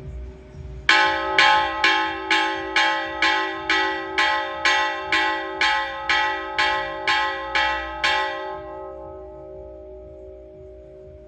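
A single church bell struck rapidly, the same note each time, about two strokes a second for some sixteen strokes, then left to ring on and die away.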